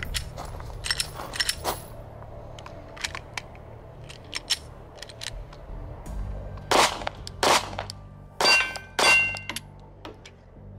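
Four 9 mm shots from a Glock 43X compact pistol, about a second apart, roughly two-thirds of the way in; a steel target rings after each of the last two. A few lighter clicks come in the first two seconds as the pistol is handled. The string stops with a malfunction that the shooter puts down to not gripping the pistol tightly enough.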